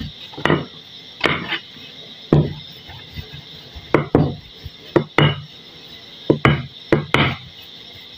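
Wooden rolling pin knocking against a board as chapati dough is rolled out, about a dozen irregular knocks and thuds as it is pushed back and forth.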